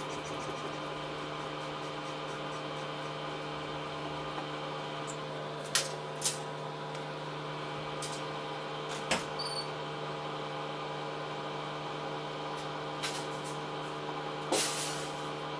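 Samsung washing machine running a wash cycle: a steady motor hum, with a few short, sharp clicks or knocks scattered through.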